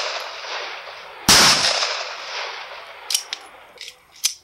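A 9mm 1911 pistol fires a single shot. Its report rings out and fades slowly over about two seconds, following the dying tail of a shot fired just before. A few short, sharp clicks come near the end.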